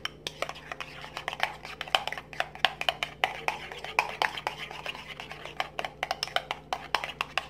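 A metal utensil briskly stirring a mixture in a glazed ceramic bowl, tapping and scraping against the bowl in rapid, irregular clicks several times a second.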